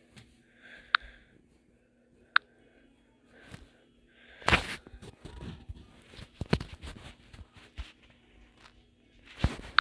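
Scattered sharp clicks and short crunching, rustling noises. The loudest bursts come about halfway through and again near the end, and a faint steady hum sits under the first few seconds.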